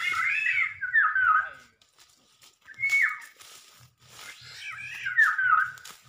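Black-naped oriole calls: loud down-slurred calls in three bouts, one at the start, a short one near the middle and a longer one near the end.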